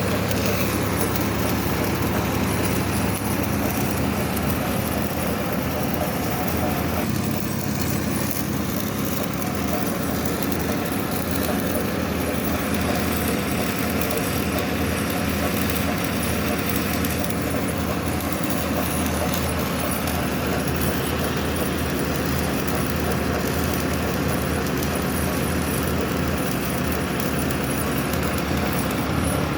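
Stick welding: the arc crackles and hisses steadily over a constant low machine hum.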